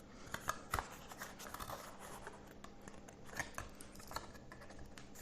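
Faint scattered clicks and light rustles of a small earphone box and its contents being handled.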